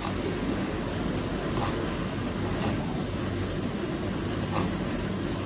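Gas burner flame roaring steadily under skewered fish, with a few faint knife taps on a plastic cutting board.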